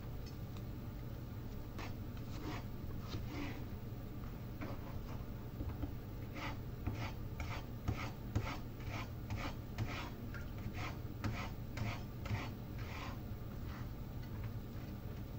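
Kitchen knife slicing a cucumber on a cutting board: a run of short cutting strokes, about two or three a second, starting about two seconds in and stopping near the end.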